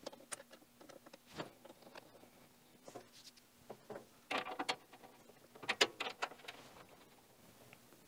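Faint clicks and rustles of a rubber refrigerant hose being handled and its fitting screwed onto the system's vapor service port, with small clusters of handling noise about halfway through and again a second or so later.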